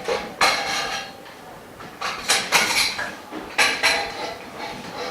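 Parts of a dust-free booth's frame clinking and knocking together as it is assembled by hand, a few sharp ringing knocks at irregular intervals.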